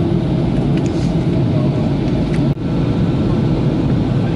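Steady cabin noise of a Boeing 737NG in flight: the rumble of its CFM56-7B engines and the airflow, heard from a window seat, with most of the sound low in pitch. The sound dips out for an instant about two and a half seconds in.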